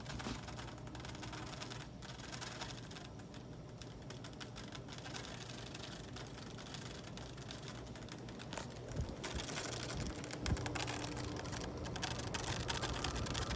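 Progress Lighting Apollo ceiling fan running, its motor giving a steady low electrical buzz under a rapid, fine clicking. The buzz is this fan's known fault: it "buzzes like crazy".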